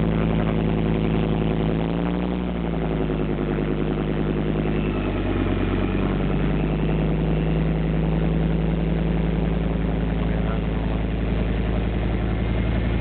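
Heavy diesel engine of a tracked armoured vehicle running steadily. Its pitch dips about two seconds in and picks up again around five to six seconds in.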